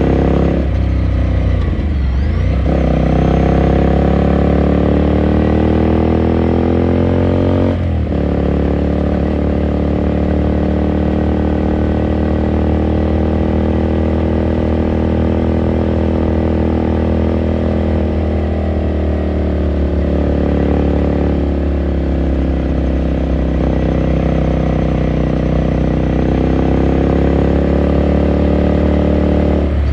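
Onboard sound of a 2018 Ducati Scrambler Sixty2's air-cooled 399 cc L-twin engine and exhaust while riding. The revs dip briefly about a second in, then climb until they drop sharply at a gear change about eight seconds in. They hold fairly steady, then rise again toward the end.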